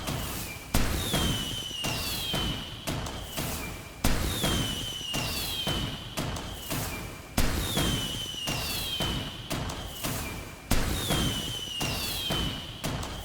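Fireworks going off: a sharp bang about every three seconds, each followed by a falling whistling tone and a fading rumble, the same pattern repeating.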